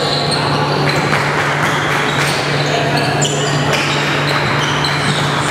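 Basketball game on a hardwood gym floor: a ball bouncing and sneakers squeaking, with players' voices, in an echoing hall over a steady low hum.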